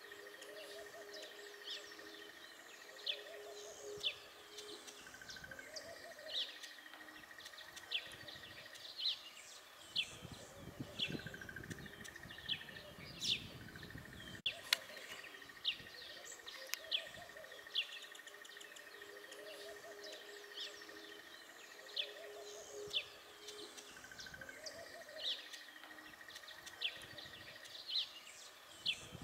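Wild birds chirping: many short, sharp chirps at irregular intervals, over a steady high buzzing trill that stops and starts. A low rumble comes in for a few seconds about a third of the way through.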